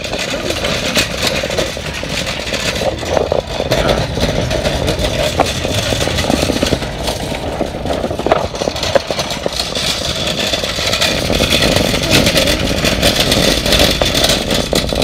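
Metal shopping cart rolling across parking-lot asphalt, its wheels giving a steady rumbling rattle with many small clatters.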